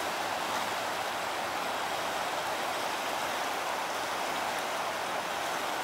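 Swollen river rushing steadily: an even, unbroken hiss of moving water.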